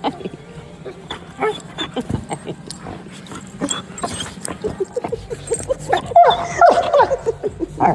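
Excited puppy whimpering and yipping in short, squeaky, falling cries, among scattered short clicks and taps. The cries grow louder and come thicker from about six seconds in.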